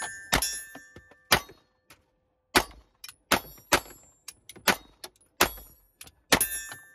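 Eight 9mm pistol shots from a Smith & Wesson M&P9 Metal Carry Comp, fired at uneven intervals with some in quick pairs, at steel targets. After the hits a steady ringing lingers from the struck steel plates and fades after the last shot.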